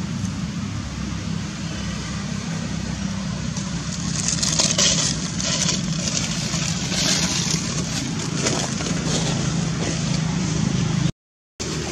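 A steady low engine-like hum, like a vehicle idling nearby, runs throughout. From about four seconds in, crisp crackling of dry leaves comes and goes as a macaque forages in the leaf litter. The sound drops out briefly near the end.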